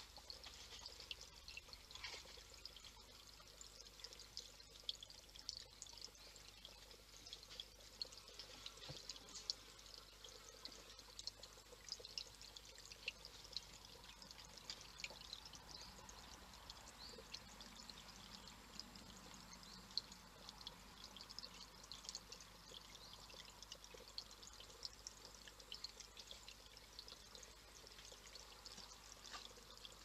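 Faint trickling of water over the stones of a small garden water feature, with many light patters and drips.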